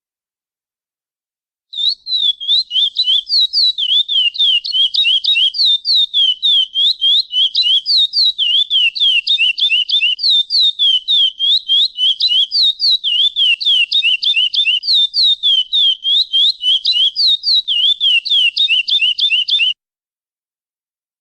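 Chestnut-bellied seed finch (curió) giving a pialada: a long, rapid run of sharp down-slurred notes, about five or six a second, starting about two seconds in and stopping abruptly shortly before the end.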